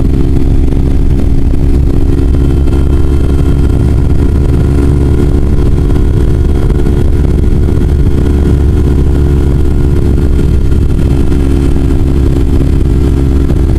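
Kawasaki Ninja 250's parallel-twin engine cruising at constant highway speed, its pitch holding steady, with wind rush on the bike-mounted microphone.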